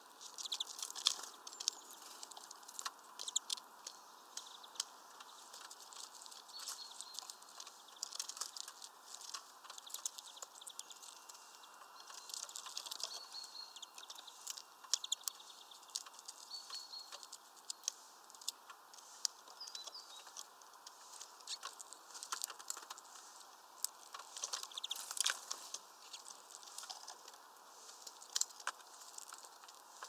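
European greenfinches pecking and cracking sunflower seeds from a dried sunflower head: a dense, irregular patter of sharp clicks and taps. A few faint, short, high bird chirps come through in the middle.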